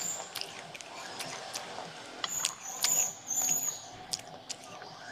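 Dry crunching of baked terracotta clay: small crisp cracks and clicks as fragments are crushed, with a denser run of grating crunches in the middle.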